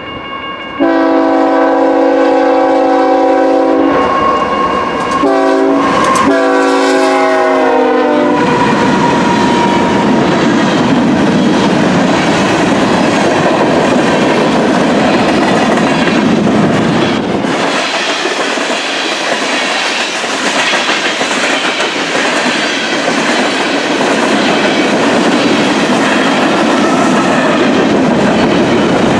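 Diesel freight locomotive's multi-chime air horn sounding several blasts, starting abruptly about a second in and ending about eight seconds in. It is followed by the steady rumble and clickety-clack of loaded covered hopper cars rolling past close by.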